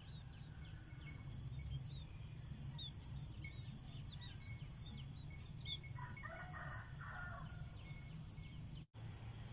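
Rural outdoor ambience: small birds chirping throughout over a low steady rumble, with a chicken calling several times about six to seven and a half seconds in.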